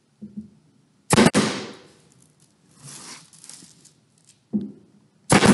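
Pneumatic micro-brad nailer firing twice, about a second in and again near the end, driving brads into a wooden filler strip on a vanity cabinet. Each shot is a sharp crack followed by a brief hiss of exhaust air.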